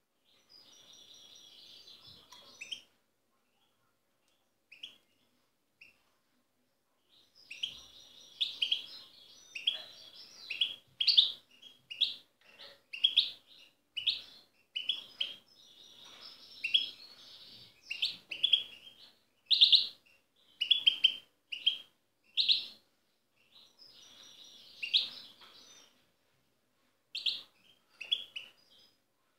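European goldfinch singing. A short twitter and a few single notes come first, then from about seven seconds in a long run of rapid, jingling twitter studded with loud sharp notes, pausing briefly near the end.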